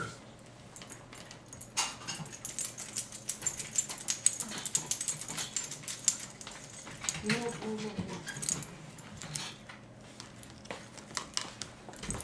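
Cavalier King Charles Spaniel puppy moving about on its leash on a hardwood floor, giving rapid runs of light metallic jingles and clicks. A brief vocal sound comes about seven seconds in.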